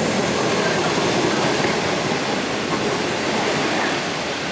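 Type 25Z passenger coaches passing at speed, a loud, steady rush of wheels on the rails.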